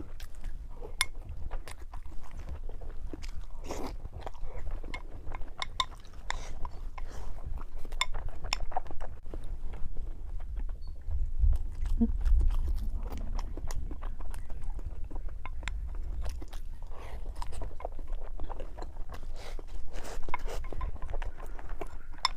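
Close-miked chewing and biting of fried pork: wet mouth clicks and small crunches, irregular and continuous, over a steady low hum.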